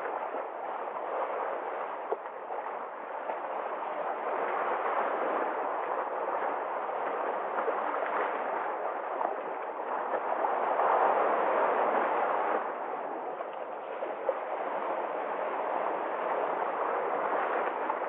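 Sea waves washing in and breaking over and around shoreline rocks: a steady rushing surf that swells louder for a couple of seconds past the middle.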